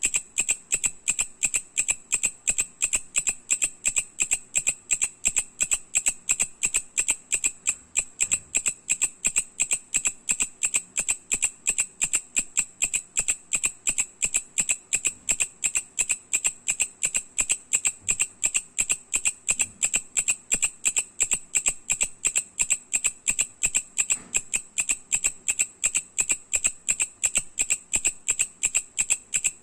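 Mecopoda katydid (sickle-bearing bush cricket) singing: a loud, steady train of sharp, evenly spaced ticks, several a second, that goes on without a break.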